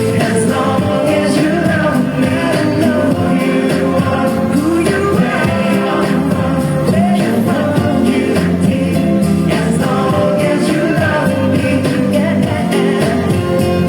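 Loud song with singing, playing without a break.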